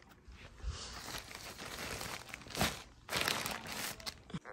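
Rustling and crinkling of clothing and packaging being handled and packed into a small suitcase, in uneven bursts that are loudest from a little past halfway on.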